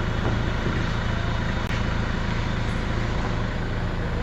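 A steady engine-like rumble with a constant low hum and a noisy wash over it, unchanging throughout.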